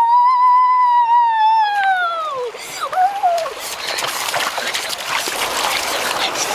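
A boy's long, high whooping shout that rises, holds and falls away, then a short second yell. After that comes splashing as he runs through shallow river water.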